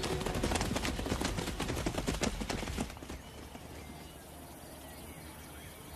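Herd of plains zebras galloping: a rapid, dense drumming of hoofbeats that stops about three seconds in, leaving a much quieter stretch.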